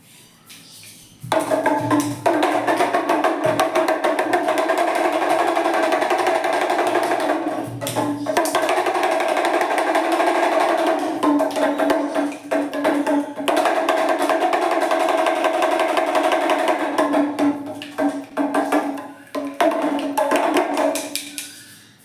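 Damru, the small hourglass-shaped two-headed hand drum, rattled in fast continuous rolls as its corded beads strike both heads. It starts about a second in, breaks off briefly twice along the way, and stops just before the end.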